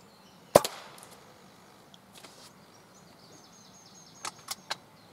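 A single sharp crack from a silenced Theoben Rapid pre-charged air rifle firing, with a short tail, about half a second in. A few faint clicks follow near the end.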